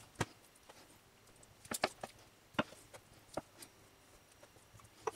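A wooden spoon scooping pie filling from a pan and into pastry lined in a plastic pasty press, giving a handful of sharp, separate knocks and clicks.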